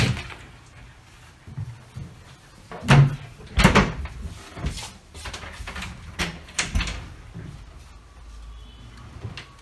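Wardrobe doors being opened and shut by hand: a series of clunks and knocks as the panels swing and close, clustered between about three and seven seconds in.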